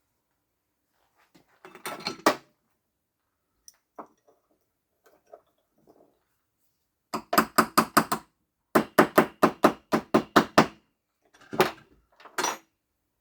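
Light metallic taps and clinks, mostly in two quick runs of about five strokes a second in the middle, then two single taps near the end, as a ball bearing and spacer ring are worked onto a wheel-motor shaft.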